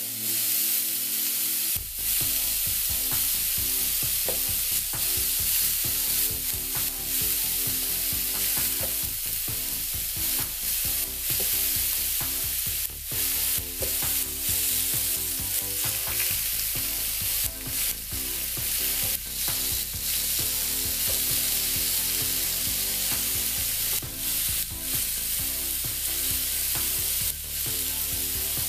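Oiled, marinated vegetable slices sizzling on the hot ribbed plates of an electric contact grill as more pieces are laid down, a steady hiss with scattered soft clicks.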